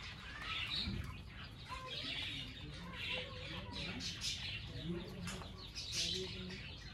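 A flock of baby chicks peeping, many short high calls overlapping, with some lower clucking calls among them.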